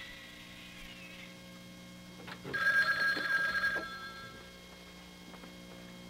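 Desk telephone bell ringing: one ring dies away about a second in, then another ring of about a second and a half starts about two and a half seconds in. A faint steady hum lies underneath.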